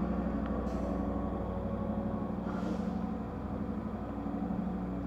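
Steady low hum of an idling diesel train engine, with two short hisses of air about a second and two and a half seconds in.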